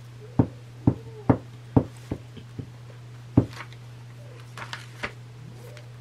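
A series of sharp taps, about two a second for the first three and a half seconds, then a few lighter ones near the end, from a glue stick being worked onto collage paper on a tabletop. A steady low hum runs underneath.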